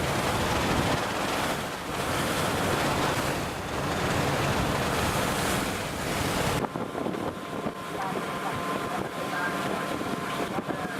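Wind buffeting the microphone over the sea and waves aboard a fishing boat. About two-thirds of the way through it cuts suddenly to a quieter background with a faint steady hum.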